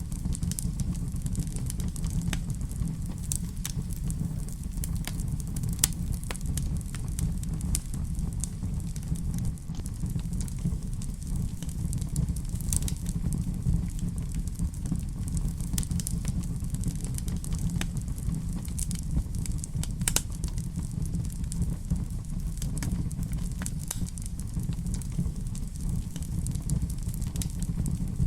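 Wood fire burning in a fireplace, crackling with frequent irregular pops over a steady low rumble; a few louder snaps stand out about 6, 13 and 20 seconds in.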